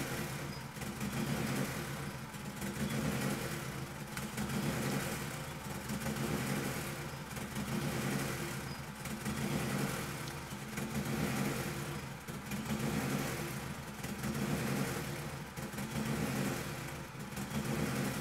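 Turbocharged 2000 Honda Civic EX four-cylinder engine running steadily, its sound swelling and fading about every second and a half. The engine is running extremely rich, its air-fuel ratio below what the wideband sensor can read, with fuel pouring out of the car.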